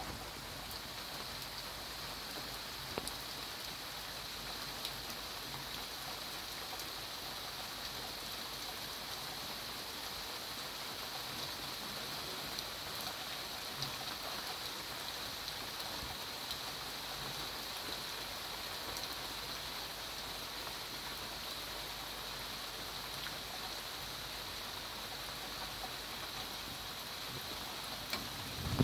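Steady rain falling, an even hiss with now and then a single drop ticking closer by.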